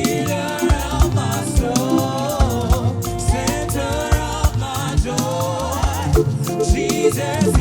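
Live gospel band playing with a steady drum beat and bass, with singing over it.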